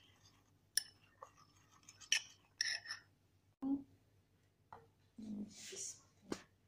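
A metal spoon stirring sauce in a container, with a few sharp clinks and taps as it knocks against the sides and is set down.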